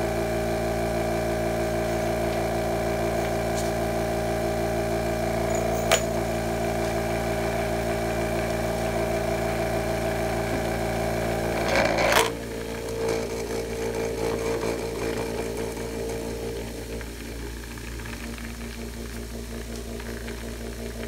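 Lyman Turbo vibratory case tumbler running, a steady hum from its motor shaking a bowl of walnut-shell media. There is a single sharp knock about six seconds in and a louder clatter about twelve seconds in as the lid goes on, after which the running sound is quieter.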